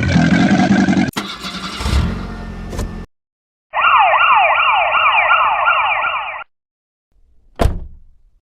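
An electronic siren in fast, repeated rising sweeps lasting nearly three seconds, about midway through. Before it come about three seconds of other dense, choppy noise, and a single sharp hit sounds near the end.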